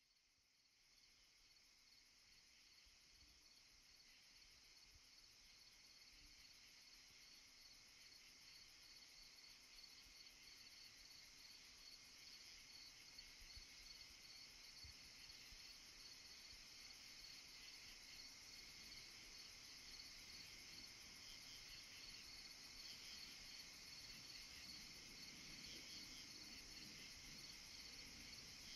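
Faint insects chirring, a high, fast pulsing that fades in slowly and grows louder.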